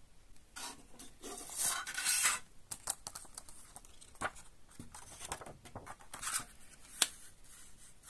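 Paper rustling and crinkling as hands handle a CD single's folded paper inlay and open it out. The rustle is loudest in the first couple of seconds, followed by scattered short rustles and clicks and one sharp click about seven seconds in.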